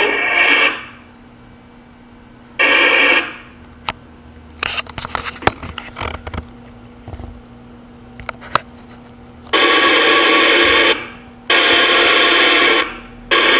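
CB radio speaker on channel 19 (27.185 MHz) putting out received transmissions as noisy, garbled bursts with quiet gaps between: a short one about three seconds in, then long stretches from about nine and a half seconds on, broken by two short breaks. In the quiet middle stretch there are scattered clicks and knocks.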